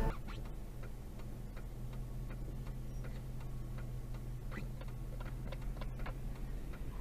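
Car cabin sound while waiting in traffic: a low steady engine hum with faint, irregular ticking, about one or two ticks a second.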